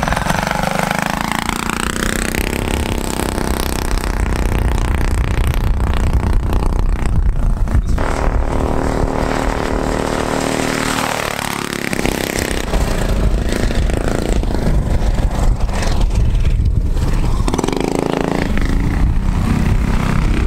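Stage-one Predator single-cylinder four-stroke go-kart engine being driven hard, its pitch rising and falling several times as the kart accelerates and eases off.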